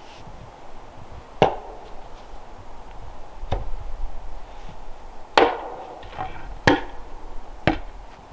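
Five sharp chopping strikes of a tool hitting wood, at uneven intervals of one to two seconds.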